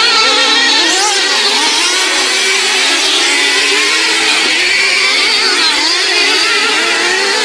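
Several racing engines running together at high pitch, their speeds rising and falling as they rev and hold on.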